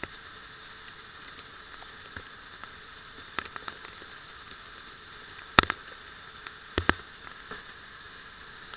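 Waterfall spray falling on a head-mounted action camera: a steady hiss of water with a few sharp knocks on the camera, the loudest about halfway through and a pair about a second later.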